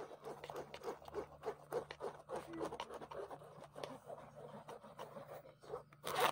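Light scraping and small clicks from straining a blended banana-pineapple smoothie through a sieve into a glass bowl, with one louder knock about six seconds in.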